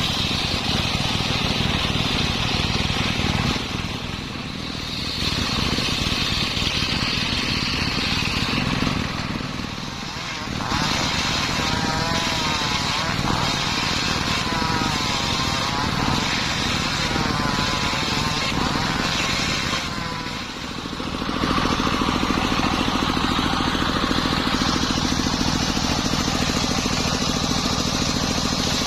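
Homemade circular saw running and cutting wood, a loud continuous machine drone with short dips about 4, 10 and 20 seconds in. In the middle stretch a wavering whine rises and falls as the blade works through the timber.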